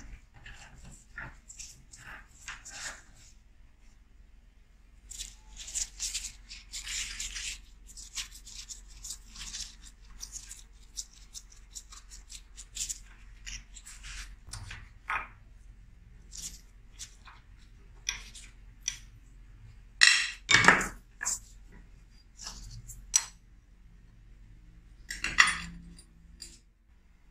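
Steel rifle parts and tools clinking, tapping and scraping against each other and the vise during hand disassembly, with a few louder metal clanks about two-thirds of the way through and again near the end.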